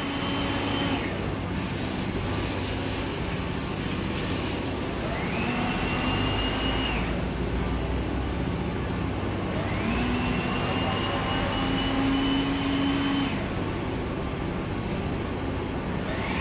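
Cutting torch hissing steadily as it cuts a hole down through galvanized sheet metal. Three times a whine rises in pitch, holds for two to three seconds, then stops abruptly.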